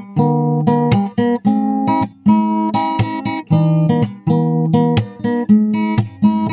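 Acoustic guitar played fingerstyle: a plucked melody over low bass notes, several notes a second with brief pauses between phrases.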